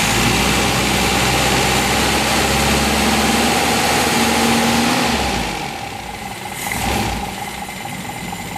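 Car engine with a distributor ignition running loudly and steadily for about five seconds, its pitch creeping up slightly, then dropping to a quieter idle with a brief swell about a second and a half later.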